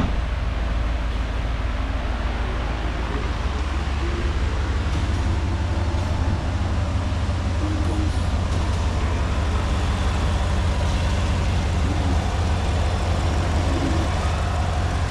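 A 2017 Cadillac Escalade's 6.2 L V8 idling steadily with the hood open, a low even engine hum.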